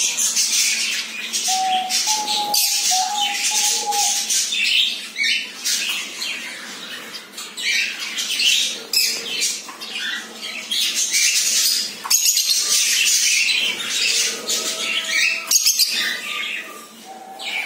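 Cockatiel squawking in repeated harsh bursts, with a few short whistled notes mixed in.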